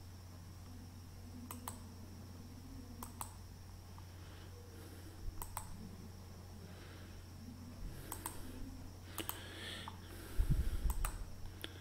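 Computer mouse button clicking several times, each click a quick press-and-release pair, over a steady low hum. A low bump about ten and a half seconds in is the loudest sound.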